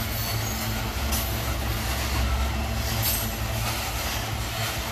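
Loaded freight train ore wagons (GDT gondolas) rolling past: a steady rumble of steel wheels on the rails, with brief high hisses now and then.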